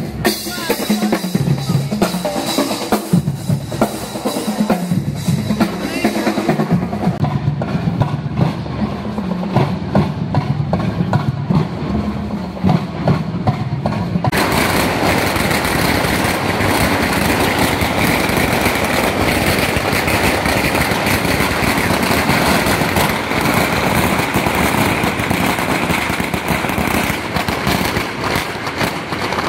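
A street percussion troupe drumming on LED-lit drums in a fast, driving rhythm. About halfway in, a dense, continuous crackle of firecrackers starts suddenly and carries on to the end over the drumming.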